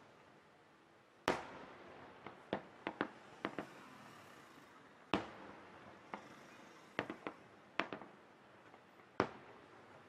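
Aerial firework shells bursting: a string of sharp bangs at uneven intervals. The three loudest come about four seconds apart, about a second in, near the middle and near the end, with smaller pops and crackles between them.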